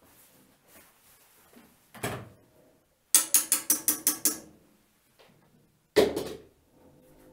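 Knocking from building work: a thud, then a quick run of about eight sharp knocks, about six a second, then another hard thud.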